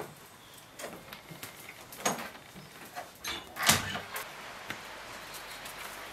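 A wooden door being opened and shut, with a few lighter knocks and clicks leading up to one loud knock a little past halfway. A steady background hiss follows.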